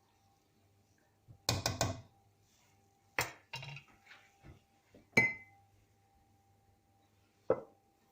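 Kitchen utensils clinking and knocking against each other. A quick cluster of clatters comes about a second and a half in, then single clinks around three and five seconds, the one at five ringing briefly. A shorter, duller knock comes near the end.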